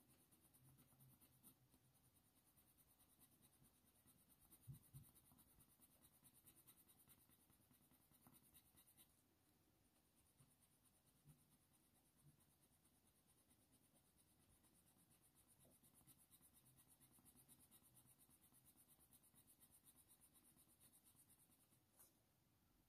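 Near silence: faint scratching of a coloured pencil worked with hard pressure on watercolour paper, with a couple of soft knocks about five seconds in.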